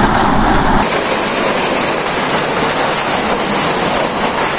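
Steady rushing of falling water: rain coming down, with a waterfall in the valley, as an even noise with no separate drops or strikes. The tone of the noise shifts slightly about a second in.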